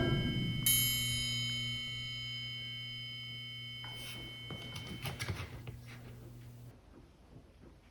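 A single bell-like chime struck about a second in and ringing out slowly over the fading low notes of music, with a few light knocks near the middle, then an abrupt cut to silence.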